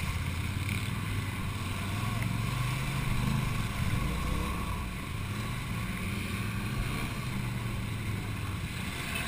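Quad bike (ATV) engine running through a shallow river, its pitch rising and falling with the throttle, over the rush and splash of water thrown up by the wheels.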